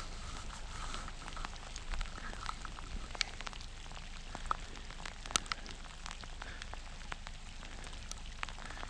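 Steady rain falling, with many scattered, irregular sharp ticks of drops striking close to the microphone.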